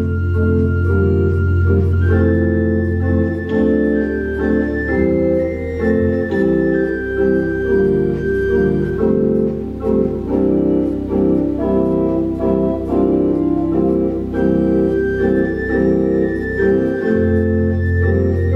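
Organ music: slow sustained chords over long-held bass notes, the bass changing a few times.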